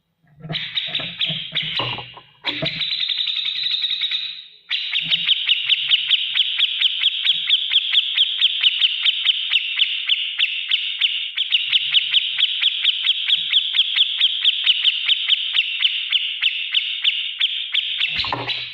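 Cucak jenggot (grey-cheeked bulbul) singing a harsh, rapid ticking song, the 'beset ngetik' style. It pulses about four times a second, with short breaks about two and four and a half seconds in.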